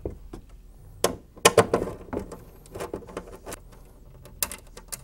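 Scattered sharp clicks and light knocks of hand work on a sheet-metal equipment cover as a grounding wire is unfastened, the loudest of them about a second and a half in.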